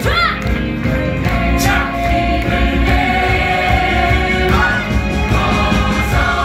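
Musical-theatre cast singing together as an ensemble over instrumental accompaniment, holding sustained notes.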